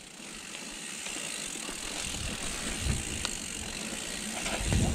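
Mountain bike's rear freehub ratcheting as the bike coasts, a rapid clicking under tyre and trail noise that grows gradually louder.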